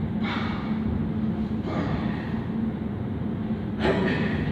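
A man's short, sharp exhalations through the mouth as he throws strikes in a shadow drill, three bursts of breath with the last the loudest, over a steady low hum.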